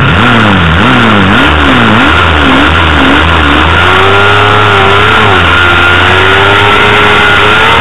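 Honda CBR250RR's small four-cylinder engine revved on the start line, the revs swinging up and down about twice a second, then held high from about halfway through and climbing slowly as the bike gets away from the start.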